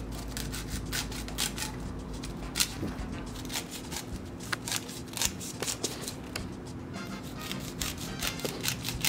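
Sharp kitchen knife scraping kernels off a fresh white corn cob into a glass bowl: a quick, irregular series of crisp scrapes, a few strokes each second, over faint background music.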